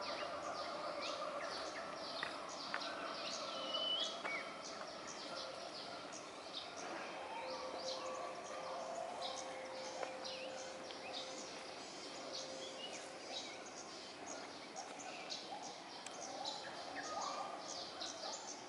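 Outdoor ambience full of small birds chirping constantly in the trees, over a faint steady background murmur.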